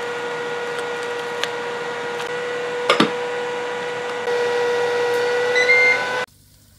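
Kitchen appliance running with a steady, pitched electrical hum. A single sharp clink comes about three seconds in, like a glass pot lid being set down. The hum cuts off abruptly near the end.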